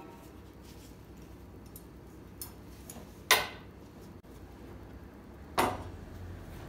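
Cutlery and tableware being set down on a wooden serving board: a few light taps, then two sharp clinks about two seconds apart.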